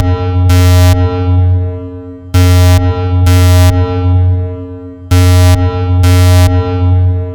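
Synthesized 'Illuminati radio' sound effect on a loop: two short blasts of static-like noise, then a fading tone with a deep hum underneath, the cycle repeating about every two and three-quarter seconds.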